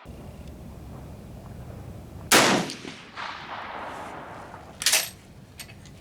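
Two rifle shots about two and a half seconds apart, the first louder with a longer echo trailing off, over a steady low background rumble.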